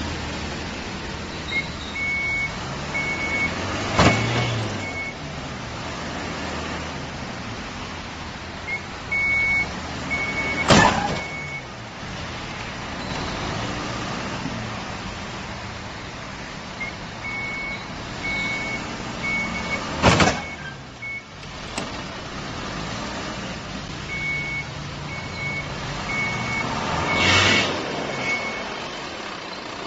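A pickup truck ramming a white SUV: four loud impacts several seconds apart over the running engine. Before each impact comes a group of short, high-pitched electronic beeps from a vehicle.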